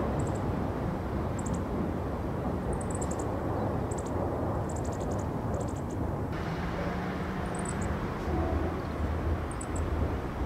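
Outdoor ambience: a steady low rumble with short high chirps repeating in small clusters. The background changes abruptly about six seconds in, after which a low hum comes in and a deeper rumble builds toward the end.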